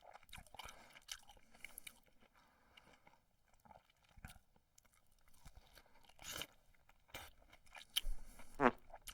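Dubbed-in comedy chewing and crunching sound effects: a run of short, wet, crackling bites and munches. Near the end comes a louder pitched noise that slides quickly down in pitch.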